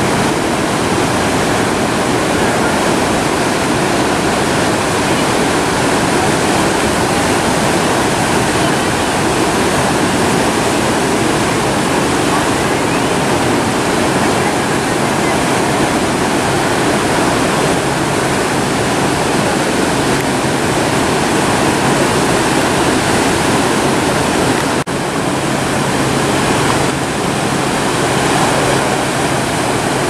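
Ocean surf breaking and washing over a rocky shore: a steady, loud rush of waves and foaming white water.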